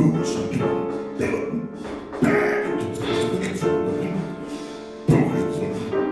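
Improvised music: a male voice vocalising without words into a close-held microphone, with sudden new sustained tones entering about two seconds in and again about five seconds in.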